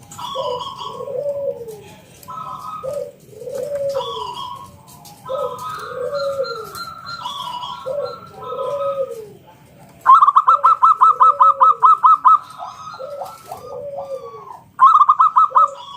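Perkutut (zebra doves) calling, a steady run of short, rounded coo notes repeated about once a second with higher notes over them. About ten seconds in, a louder, fast trilling call runs for two or three seconds, and it comes back briefly just before the end.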